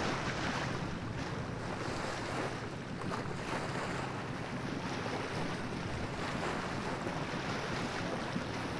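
Steady wind and rushing water along a sailboat's hull as it moves through choppy sea, with wind buffeting the microphone.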